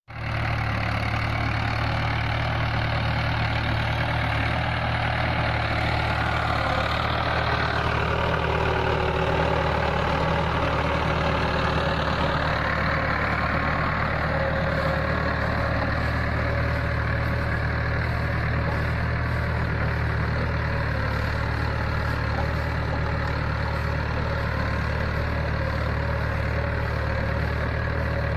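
A 45 hp tractor's diesel engine running steadily under load, pulling a three-bottom reversible mouldboard plough through stubble.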